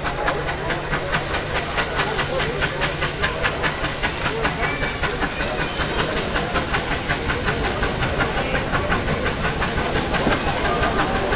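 Steam locomotive approaching and working steam, with rhythmic exhaust chuffs at about four a second over a steady hiss, growing slightly louder toward the end.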